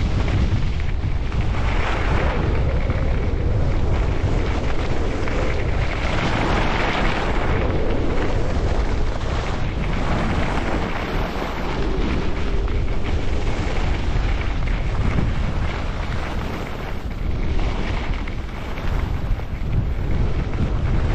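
Wind buffeting the microphone of a skier's camera on a fast downhill run, over the hiss of skis sliding on snow that swells and fades through the turns.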